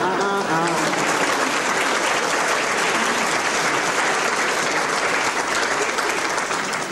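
Studio audience applauding steadily, a dense patter of many hands clapping that dies away near the end.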